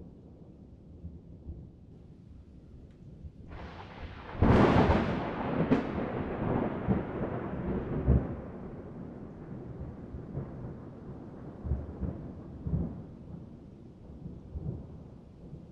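Thunder: a low rumble builds, then a sharp crack about four and a half seconds in, followed by a long rolling rumble that slowly dies away, with a few smaller rumbles near the end.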